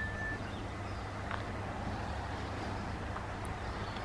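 Quiet street ambience: a steady low rumble under a faint hiss, with a couple of faint ticks. A thin high steady tone stops within the first half second.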